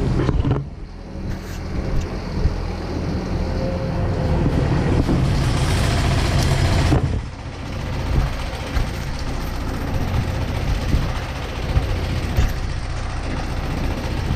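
Diesel engine running steadily, with a rushing hiss that builds for several seconds and cuts off suddenly about halfway through.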